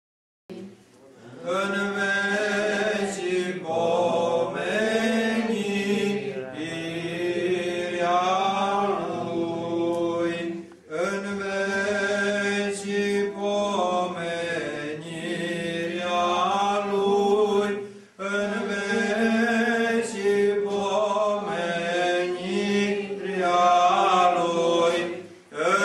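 Orthodox church chant: voices singing a liturgical melody in long phrases, with short breaks between them about 11 and 18 seconds in.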